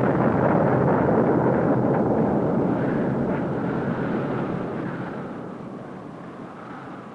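A loud, dense rumble with no clear pitch, which fades away steadily from about three seconds in.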